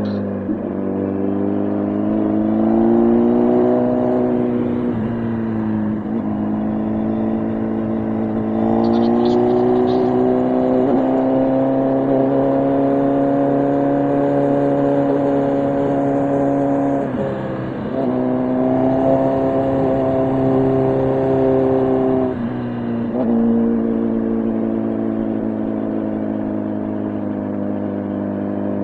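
Motorcycle engine running under way, its pitch climbing as it accelerates and dropping sharply at each gear change.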